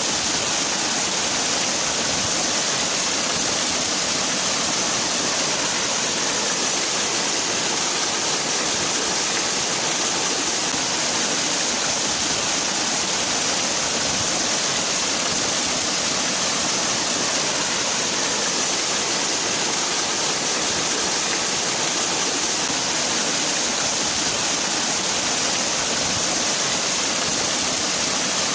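Waterfall: water falling continuously, a steady rushing hiss that stays even throughout.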